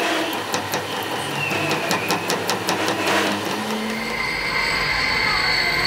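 Metal lathe turning the steel end of a truck trailer axle, the tool bit cutting the spinning work: a rapid run of clicks over the first few seconds, then a steady high-pitched cutting whine from about four seconds in.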